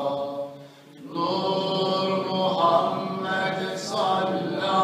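A man's voice chanting Arabic devotional recitation in long, drawn-out melodic notes: the tesbihat recited after prayer. It breaks off briefly just under a second in, then carries on.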